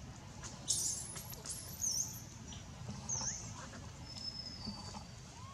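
Several short, very high-pitched squeaks and chirps, some dipping and rising in pitch, over a low background rumble.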